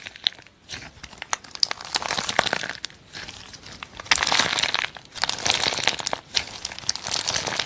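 Fingers squeezing and pressing a slime packed with small cubes, giving dense crunchy crackling and clicking in uneven bursts, loudest in the second half.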